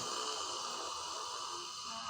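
A woman's long, forced exhalation from the throat with the mouth wide open and tongue out: the lion-breath (Simhasana) roar of yoga.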